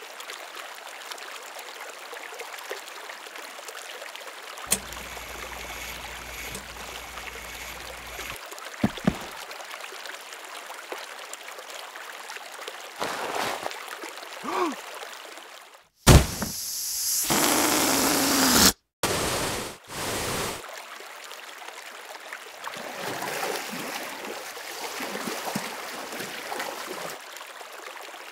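Steady rushing hiss like a running stream, with a much louder burst of rushing noise lasting a couple of seconds about halfway through and a few short pitched sounds shortly before it.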